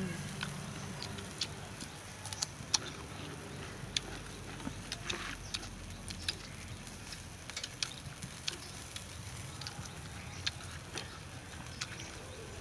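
Several people eating grilled salmon fins by hand: chewing and lip smacks heard as scattered short, sharp clicks at irregular intervals over a faint steady background.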